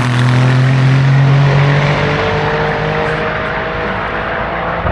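Race car engine at high revs, accelerating up the hill and slowly fading as it draws away. Its note shifts about two seconds in, then climbs in pitch. A sharp bang comes right at the end.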